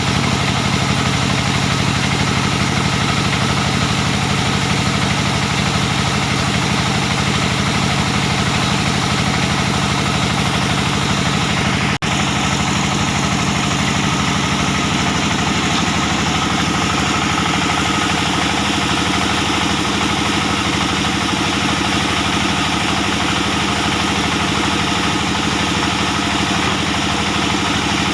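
Diesel engine driving a band sawmill, running loud and steady, with a brief break in the sound about twelve seconds in.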